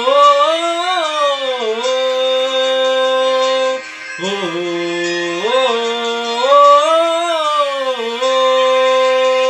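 A man's voice singing a wordless melody on long held vowels. It comes in two rising-and-falling phrases, with a short break for breath about four seconds in.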